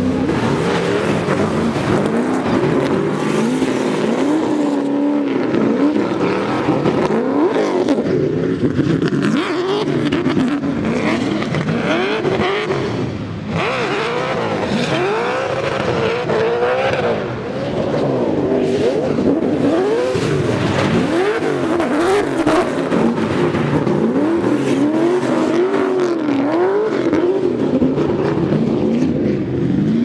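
Two drift cars sliding in tandem, one of them a Nissan S13 with a 750 hp turbocharged LS V8: the engines rev up and down over and over as the throttle is worked. Under the engines runs a constant hiss of spinning, smoking tyres.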